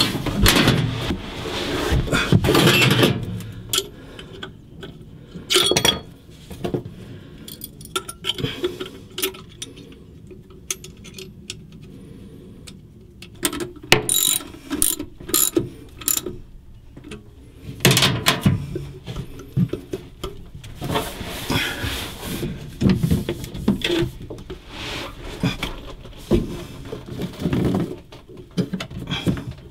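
Ratchet socket wrench clicking in irregular bursts, with knocks of metal tools, as nuts and hose-clamp screws are tightened on a boat's engine seacock fitting.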